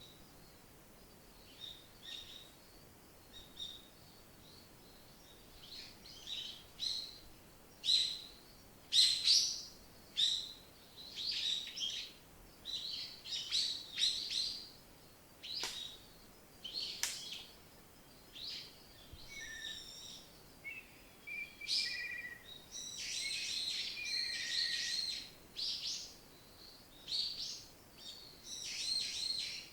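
Forest songbirds chirping and singing in short, high phrases. A few scattered chirps at first, then busier overlapping song from about six seconds in, with some lower whistled notes in the middle.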